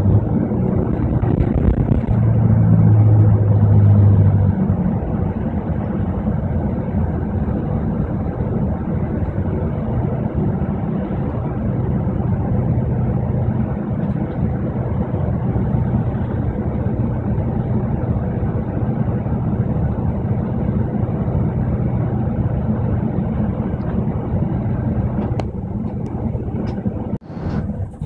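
Double-decker bus engine and road noise heard from inside on the upper deck: a steady low rumble, heavier for the first few seconds, with a few brief clicks near the end.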